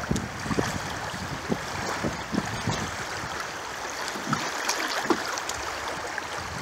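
Fast-flowing creek water rushing over a riffle close by: a steady wash broken by many small irregular splashes and gurgles.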